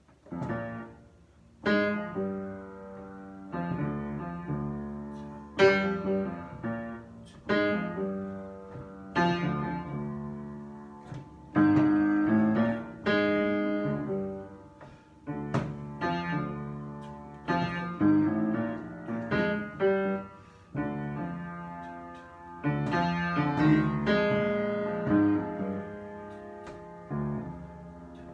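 Solo piano improvisation: chords struck every second or two and left to ring and fade before the next.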